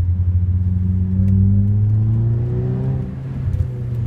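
Saab 9-3 Aero's 2.0-litre turbocharged four-cylinder engine, heard from inside the cabin, pulling under acceleration: its note rises steadily for about two seconds, then drops away briefly near the end as the throttle eases.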